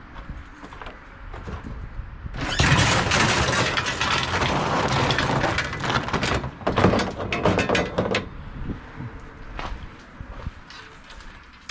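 Clattering and rattling of hard items being handled and shifted, with many sharp knocks. It gets loud about two and a half seconds in and runs for several seconds before dying back to scattered knocks.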